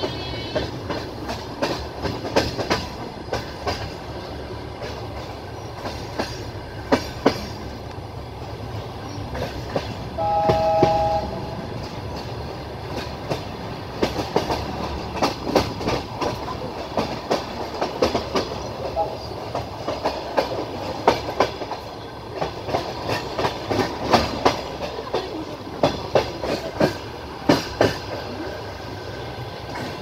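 Passenger train wheels clattering over rail joints and points, many sharp clacks over a steady rolling rumble, thicker in the second half. About ten seconds in, a train horn sounds one short two-tone blast lasting about a second.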